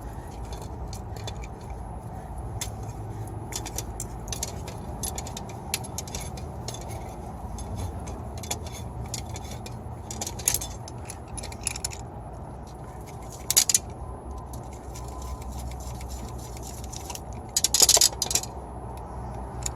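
Short metallic scrapes and clinks of hand work on a copper tube end as it is prepared for joining, with brief sharper bursts about halfway through and again near the end, over a steady low hum.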